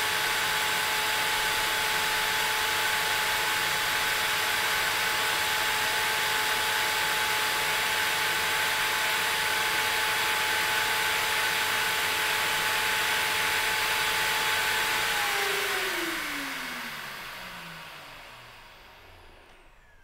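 Clearaudio Double Matrix Professional record-cleaning machine running its vacuum suction to dry the record: a steady rush of air with a steady whine. About fifteen seconds in the motor shuts off and spins down, its pitch falling as it fades, at the end of the cleaning cycle.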